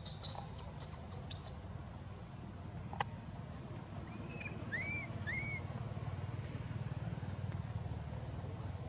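Baby long-tailed macaque giving about four short, arching squeaks around the middle, over a steady low rumble.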